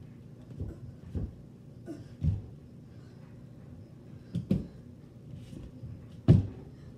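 Bare feet and hands thumping against the painted walls of a narrow hallway as a child climbs up between them: about half a dozen separate dull thumps, the loudest near the end.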